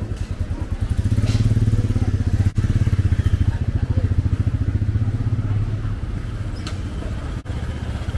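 Motorcycle engine running close by, a steady low pulsing engine sound that is loudest for a few seconds in the middle.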